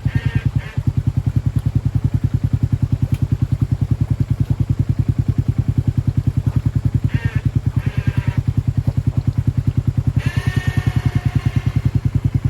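An engine idling with a steady, rapid low pulse. Two brief high-pitched wavering sounds stand out over it, about seven and ten seconds in.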